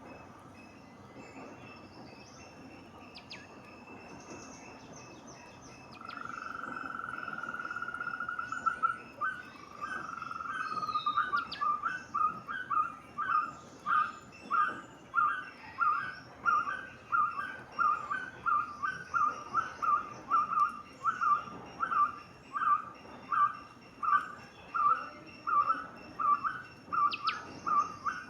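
A palm squirrel calling: a held trill starting about six seconds in, then a long run of chirps repeated about one and a half times a second. Faint high bird calls sound behind it.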